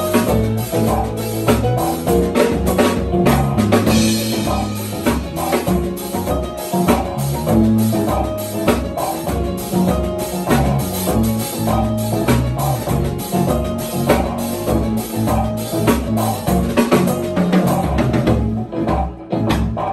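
Live jazz trio playing: piano chords and an electric bass line over busy drum-kit grooves with snare and bass drum. The drumming thins out near the end.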